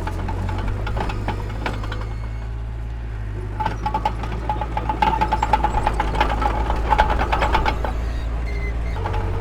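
Heavy diesel earthmoving machinery running with a steady low rumble, overlaid with metallic clanking and rattling that gets busier from about four to eight seconds in.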